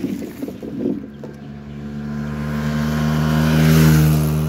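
Mini dirt bike engine running at a steady pitch as the bike rides past. It grows louder to its closest point about four seconds in, then starts to fade.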